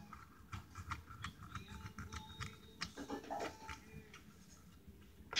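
Knife cutting and scraping into a horned melon (kiwano): an irregular run of small clicks and ticks as the blade works through the spiky rind and pulp, ending in a louder click.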